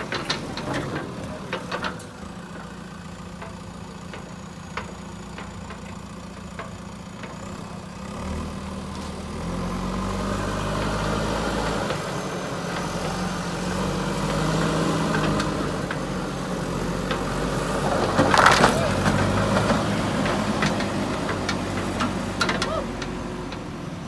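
JCB 3DX backhoe loader's diesel engine running, growing louder and higher about eight to ten seconds in as it works. A loud crunch about eighteen seconds in is the loudest moment, with scattered clicks and knocks around it.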